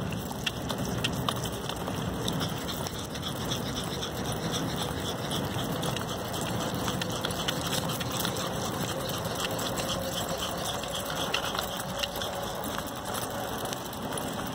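A small dog's claws tapping quickly and irregularly on brick paving as a Yorkshire terrier trots along, over steady background noise.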